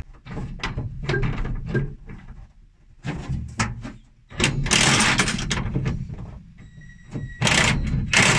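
Hand tools knocking and scraping against a car's metal floor pan as locking pliers clamped on a bolt head are worked and released. A run of short knocks and clicks comes first, then two longer bursts of scraping and rustling, the louder about halfway through.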